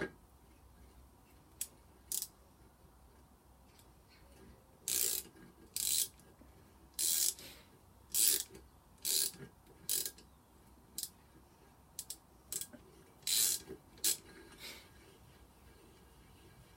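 Ratchet-action tap-and-die drive (GearWrench) clicking in short runs and single clicks, about a dozen times with pauses between, as the handle is swung back and forth in partial turns to start an M10 die cutting thread on a bolt.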